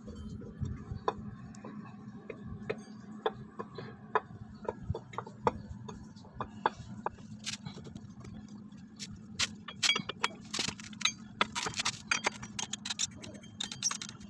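Irregular metallic clicks and clinks of hand tools and parts against a scooter's CVT drive pulley, coming faster in the second half.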